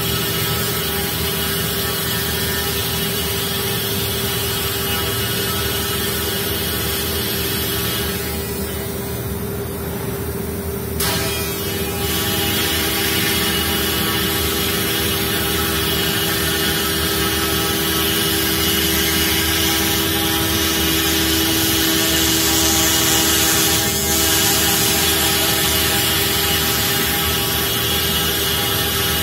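Comeva nesting CNC router running, its spindle whining steadily as the cutter mills a circular groove in a board. The cutting hiss thins out for about three seconds and comes back with a sharp click about eleven seconds in.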